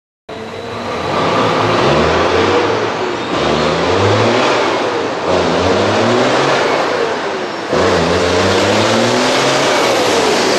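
Dakar rally truck's diesel engine revving hard as the truck accelerates, its pitch climbing and dropping back several times as it works through the gears.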